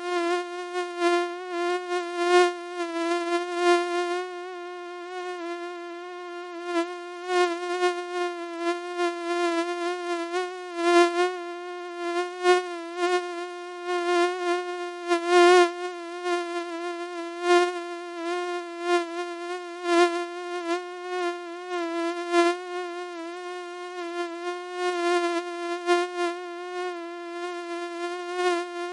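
Mosquito wingbeat whine: one steady, thin buzzing tone that wavers slightly in pitch and swells and fades irregularly in loudness.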